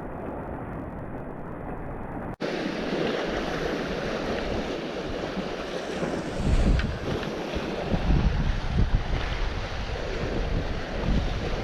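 Sea waves washing on the shore, with wind gusting on the microphone. The sound drops out for a moment about two seconds in, then comes back louder.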